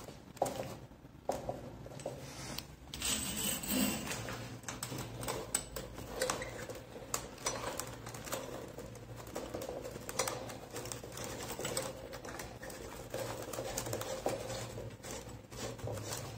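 Irregular light clicks, taps and rattles from handling a chrome mixer tap and its braided steel hoses in a cardboard box, over a steady low hum.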